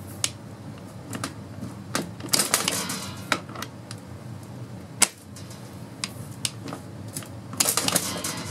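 Steel impact socket being pushed onto, twisted on and pulled off the hog-ring (friction ring) anvil of a DeWalt DCF899 impact wrench, over a steel bench. It makes irregular sharp metallic clicks and rattling, in clusters about a quarter of the way in and near the end, with one loud single click around the middle.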